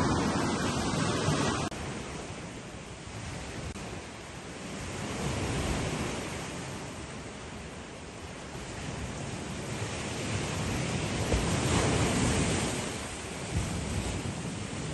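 Sea surf washing onto a beach, with wind on the microphone; the rushing noise swells and eases, loudest a little past the middle.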